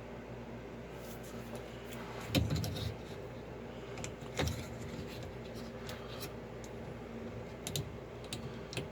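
Hands working at a washing machine's drain pump wiring: scattered small clicks and rattles, with two louder knocks about two and a half and four and a half seconds in, over a steady low hum.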